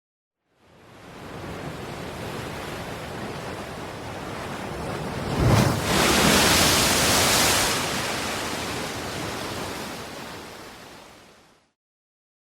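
A single sea wave: the rush of surf swells, breaks with a sudden crash about halfway through, then washes out and fades away.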